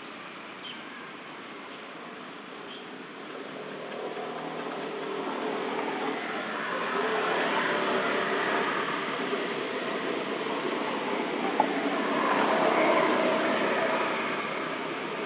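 Engine noise of a passing motor vehicle that swells up from about four seconds in, peaks twice and eases off near the end.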